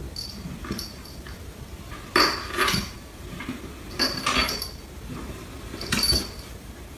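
A cat dropping down wooden stairs one step at a time: three rounds of soft bumps on the treads, about two, four and six seconds in, each with a light metallic jingle.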